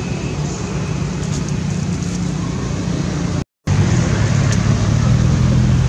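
Steady outdoor background rumble with a low engine-like hum, like traffic running nearby. The sound cuts out completely for an instant about three and a half seconds in, then resumes a little louder.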